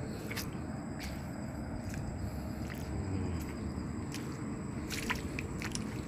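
Water sloshing and splashing as people wade waist-deep through shallow water, with scattered sharp clicks and a steady low rumble underneath.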